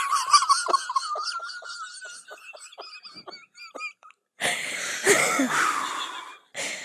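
Podcast hosts laughing. A long, high-pitched, wheezing laugh trails off over the first four seconds, followed by breathy laughter and a short final burst.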